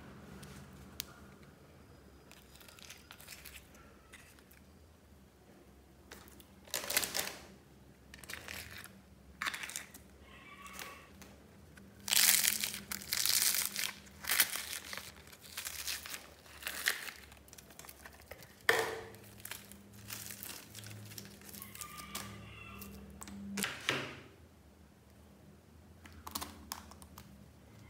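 Plastic bin liner and plastic tubs crinkling and rustling in irregular bursts as slime is scraped and tipped out of the tubs into a bag-lined plastic waste basket. The bursts are loudest near the middle.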